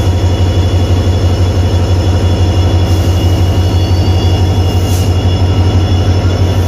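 WDP4D diesel locomotive's EMD 16-cylinder two-stroke engine idling with a steady, fast low throb, a thin high whine held above it. A brief high hiss about five seconds in.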